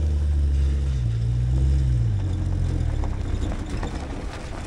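A car engine running, rising slightly in pitch about a second in and then dying down, followed by tyres crackling over dirt and gravel as the AMC Pacer rolls up.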